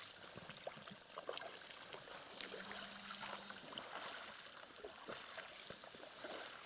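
Faint trickling and small splashes of water as a seine net and its rope are drawn through the shallows at the bank, with scattered light clicks.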